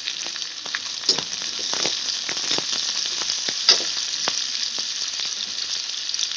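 Sliced onions sizzling in hot oil with chopped garlic and ginger in a metal kadai, stirred with a metal slotted spoon that scrapes and clinks against the pan. A steady hiss throughout, with a sharper clink a little under four seconds in.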